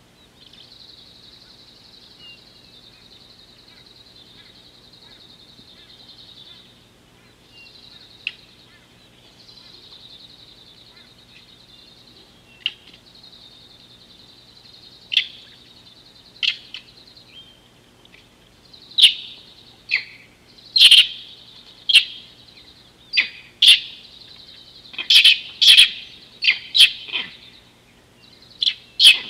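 Wild birds calling: a steady high-pitched chorus runs in the background, and from about halfway through, sharp, short, loud calls come in, growing more frequent toward the end.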